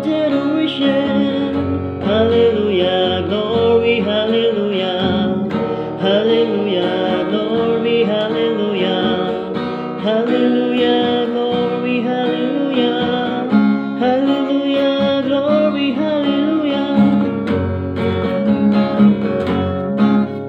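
Acoustic guitar strummed steadily while a man sings along in a wavering melody.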